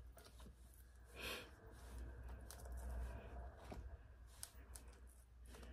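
Quiet room tone with a low steady hum and a few faint soft rustles and light ticks as sliced red onion rings are pulled apart and laid onto a salad by hand.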